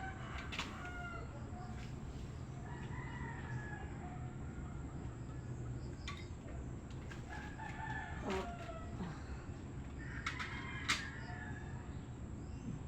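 Roosters crowing several times, with a few sharp knocks over a steady low hum.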